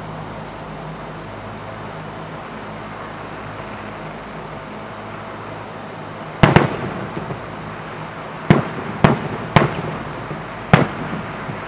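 Aerial fireworks going off: a quick double bang about six and a half seconds in, then four more sharp bangs over the next four seconds. A steady low background hum runs underneath.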